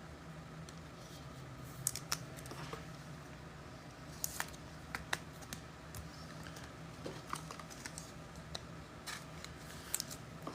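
Faint, irregular clicks and taps of trading cards and card packs being handled, over a low steady hum.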